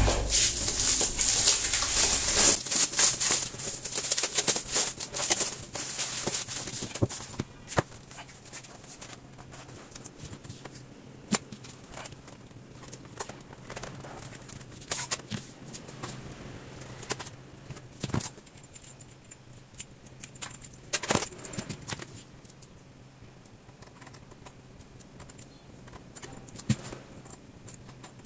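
Plastic wrapping crinkling loudly as it is handled and pulled off a desktop computer case for the first several seconds. After that come scattered rustles, clicks and knocks as the computer and monitor are handled and cables are plugged in.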